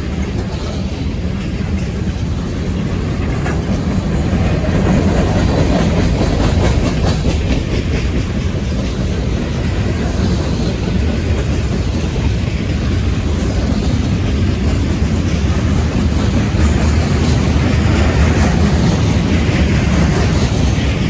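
Freight train cars rolling past with a steady rumble and clickety-clack of steel wheels on the rails. The intermodal and mixed freight train is moving at a reduced speed, about 30 mph.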